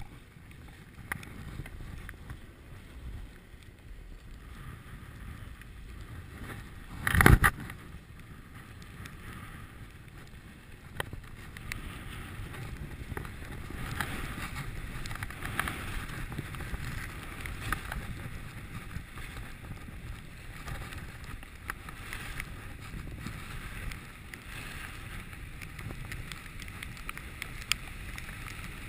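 Skis sliding and scraping over groomed snow with wind on the microphone, getting louder about twelve seconds in as the skier picks up speed. A single loud knock about seven seconds in.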